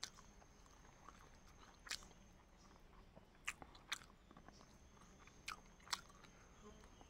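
Close-miked eating: a person biting and chewing, with a handful of sharp, crisp crunches, two of them in quick pairs, over quiet chewing.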